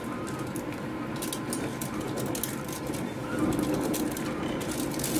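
Regional express train running, heard from inside the carriage: a steady rolling rumble with a faint steady hum and irregular light clicks and rattles.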